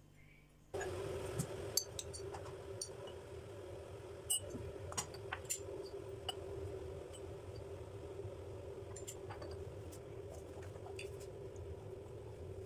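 Light, irregular china clinks as ceramic mugs and a sugar-bowl lid are handled, over a steady hum that starts about a second in.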